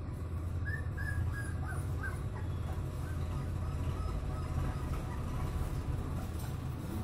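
Birds calling in the background, a few short chirps in the first two seconds, over a steady low rumble.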